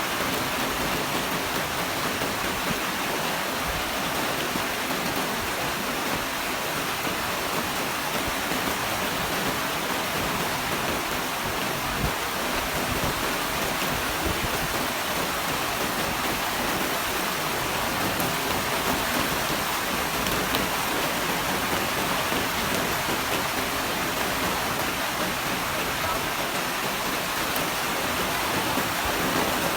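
Steady rainfall, an even hiss of falling rain that holds at the same level throughout, with one small low thump about twelve seconds in.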